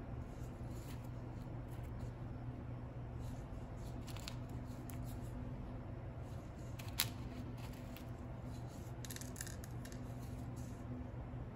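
Small scrapes and ticks of cake-decorating tools handling buttercream, with one sharp click about seven seconds in and a brief scratchy patch near nine seconds, over a steady low machine hum.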